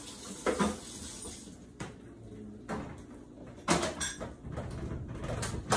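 Kitchen clatter: about five separate knocks and clinks of kitchenware being handled.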